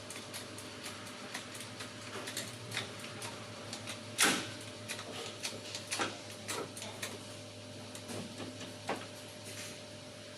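Irregular metallic clicks and knocks of hand tools against car parts, with one louder knock about four seconds in, over a steady low hum.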